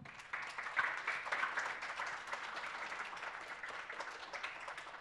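Audience of children and adults applauding, starting sharply and slowly dying down toward the end.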